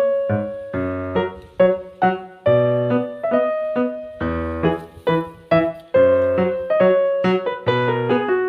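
Background piano music: a melody of struck notes over a repeating bass pattern.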